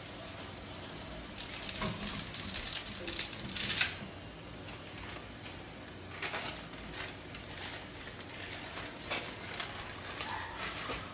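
Dry spaghetti snapping in half, a crackle of breaking strands with one sharp loud snap about four seconds in, then the plastic spaghetti bag crinkling in bursts. A steady hiss from the boiling pot and frying meat runs underneath.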